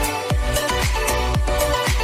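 Background electronic music with a steady beat: a deep kick drum about twice a second under sustained synth tones and crisp high ticks.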